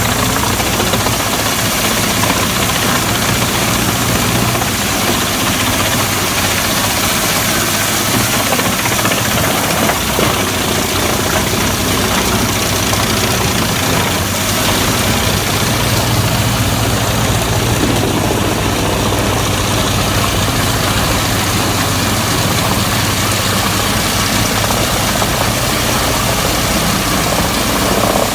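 Wood chipper running steadily: a constant engine drone under a loud, even noise spread across the whole range, with no pauses or changes.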